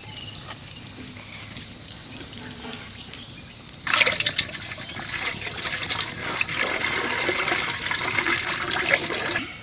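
Cooking oil being poured into a kadai for deep-frying, starting suddenly about four seconds in and running steadily with a crackly splash.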